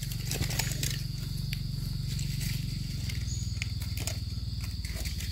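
Steady high-pitched insect drone in forest, over a low steady rumble, with scattered light clicks and rustles.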